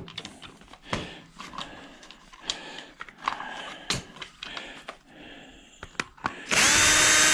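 Clicks and knocks of metal ice-maker parts being handled and worked on, then a power drill runs for about a second near the end with a loud whir and a steady whine.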